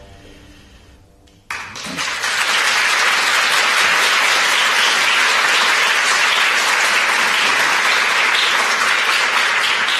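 The faint tail of music fades out. About a second and a half in, an audience starts applauding; the clapping builds quickly and then holds steady.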